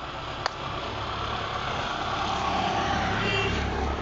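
Street background noise of passing motor traffic, swelling over the last few seconds, with a single sharp click about half a second in.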